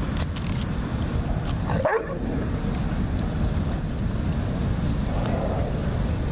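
Dogs play-wrestling, with a short yip from one of them about two seconds in and a fainter vocal sound around five seconds, over a steady low background rumble.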